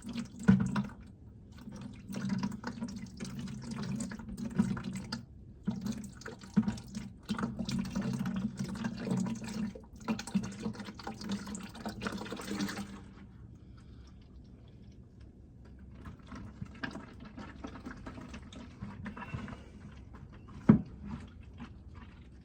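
Engine oil pouring out of the drain hole into a drain pan, splashing and gurgling unevenly. It eases to a quieter trickle about 13 seconds in, and a single sharp knock comes near the end.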